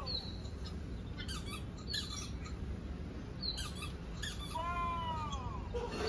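A cat meowing once about four and a half seconds in: one drawn-out call that rises then falls. Short high squeaks or chirps come every second or two.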